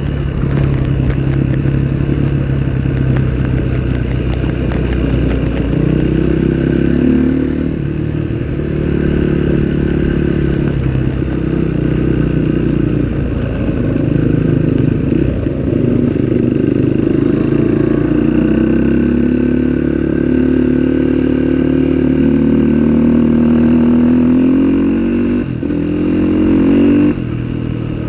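Off-road trail motorcycle engine running under load, its revs rising and falling as it rides. The engine note dips briefly and drops in level near the end.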